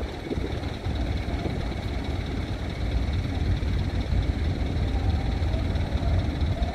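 Low, steady rumble of ship diesel engines, the tugboat and the vessel's own engines working as she is moved off the berth.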